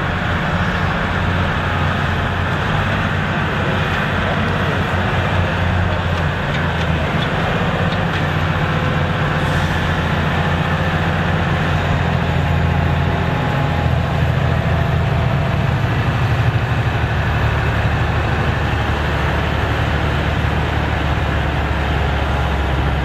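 Massey Ferguson 7726 tractor's diesel engine pulling hard under full load as it drags a weight-transfer pulling sled. It runs loud and steady, and its pitch drops a step about 14 seconds in as the sled's load builds.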